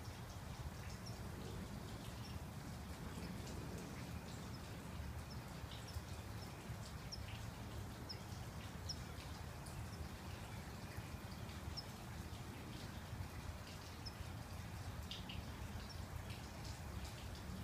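Outdoor ambience of light rain: a steady low rumble with scattered faint high chirps and ticks.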